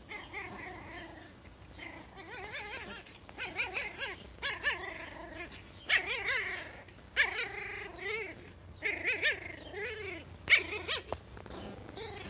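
Small white puppy giving short, high, wavering yips and whines in repeated bursts while being handled in play.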